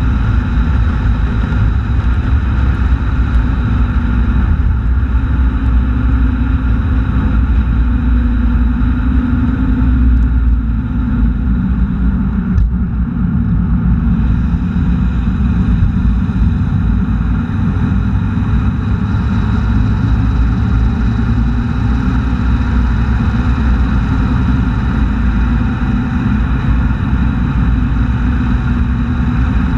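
A car driving steadily at road speed: a continuous engine drone mixed with tyre and wind noise, recorded by a camera mounted low near the road surface.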